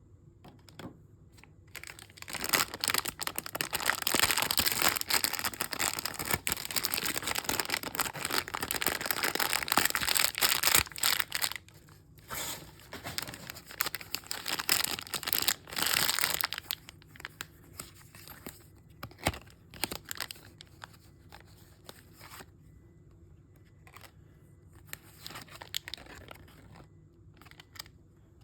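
Packaging of a toy mystery bag being torn open and crinkled by hand. A long stretch of steady tearing and rustling starts about two seconds in, breaks into shorter bursts, and then gives way to softer, scattered crinkles and small clicks for the last third.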